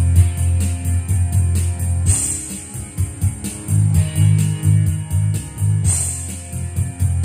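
Instrumental karaoke backing music from a Megapro Plus Piolo SD karaoke player, with a steady bass line and a bright high hit about every four seconds.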